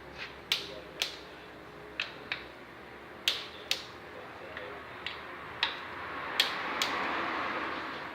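Click-type torque wrench tightening valve cover bolts to 9.8 N·m: sharp clicks, mostly in pairs about half a second apart, as the wrench breaks at torque. A soft rustling noise swells up near the end.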